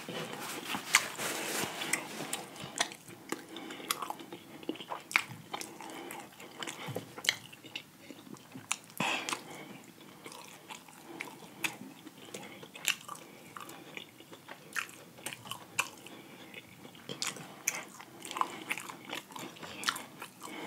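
A man chewing a mouthful of fried chicken close to the microphone: irregular crunches and clicks of the crispy breaded skin between his teeth.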